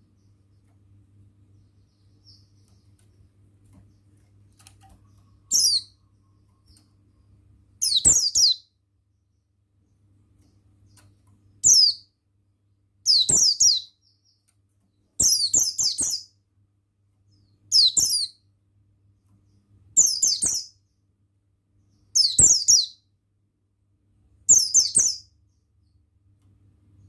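Pleci (Buxtoni white-eye) singing in short, high-pitched twittering phrases, about nine of them repeated every two seconds or so, starting about five seconds in. A faint low hum lies underneath.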